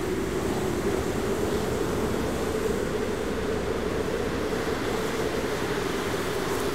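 A steady, even rumbling drone with a low hum held in it.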